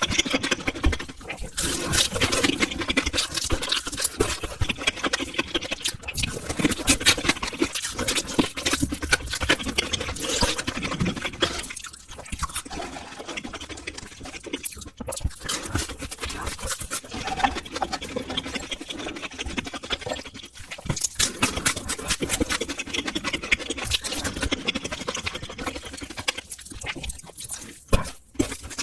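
Close-miked eating sounds of a person eating spicy instant noodles: wet chewing and slurping with many small smacks and clicks, pausing briefly a few times.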